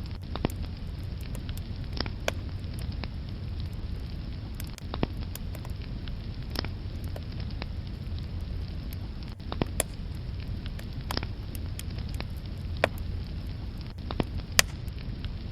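Wood fire burning in a fireplace: logs crackling, with irregular sharp pops over a steady low rumble of the flames, a couple of louder pops near the end.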